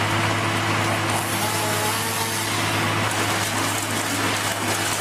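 A heavy machine's engine running at a steady speed, a constant low hum with a noisy rush over it.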